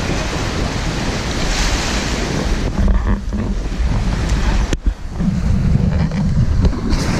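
Wind buffeting the microphone over rushing sea water and surf, with a single sharp click about four and a half seconds in.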